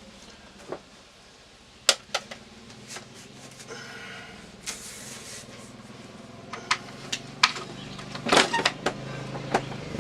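Scattered sharp clicks and knocks of wiring work: wire, tools and panel parts being handled, with a short rustle about five seconds in and a quick cluster of knocks near the end.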